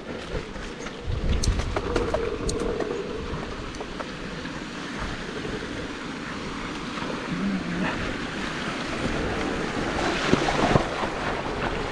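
Mountain bike riding down a dirt trail: a steady rush of tyre and wind noise, with a few sharp knocks in the first few seconds and a louder stretch near the end.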